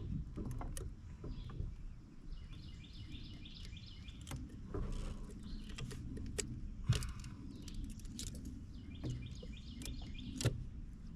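Scattered knocks and rattles of gear and a fish being handled in a fishing kayak, the two loudest about seven and ten and a half seconds in, over a low rumble. A bird repeats a high call in two spells.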